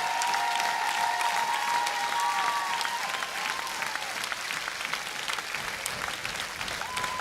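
Large audience applauding with dense, steady clapping, with whistles gliding over it, easing off slightly as it goes.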